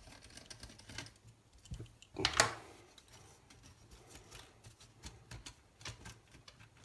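Small clicks and taps of plastic and metal laptop parts and a screwdriver being handled during disassembly, with one louder clack about two and a half seconds in.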